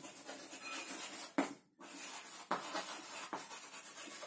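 Chalk writing on a blackboard: a run of scratchy strokes, with a brief pause about a second and a half in.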